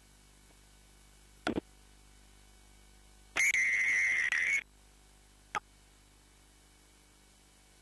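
Rugby referee's whistle giving one long blast of a little over a second, about three and a half seconds in, signalling the try just grounded at the corner. Two brief sharp sounds come before and after it.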